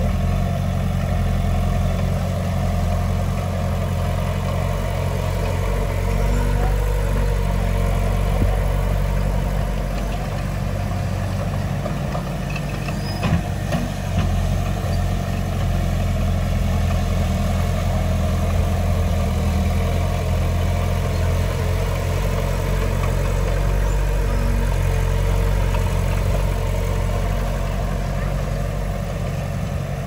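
Heavy earthmoving machine's diesel engine running steadily, its level rising and easing a little, with a brief knock a little before the middle.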